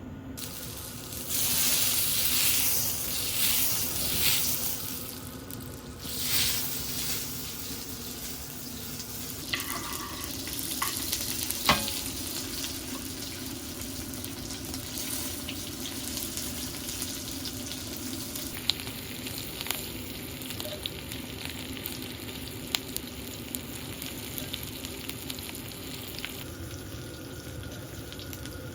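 Food sizzling and frying in a pan: a steady hiss with scattered small pops, and louder rushes of noise in the first several seconds.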